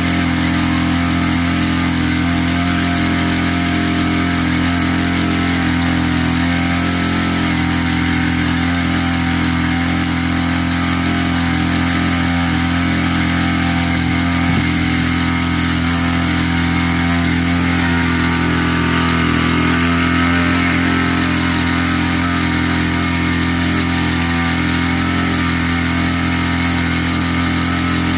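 A small engine running steadily at a constant speed, its hum unchanging throughout.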